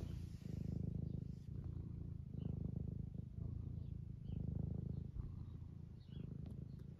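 Domestic tabby cat purring close to the microphone: a low rumble that swells and dips every second or two as the cat breathes in and out.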